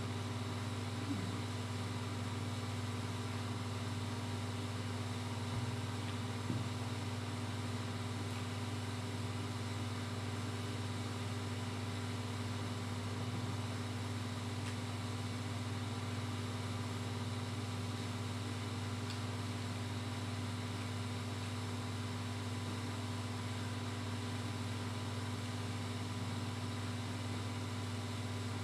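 A steady low hum, unchanging throughout, with a few faint clicks in the first few seconds.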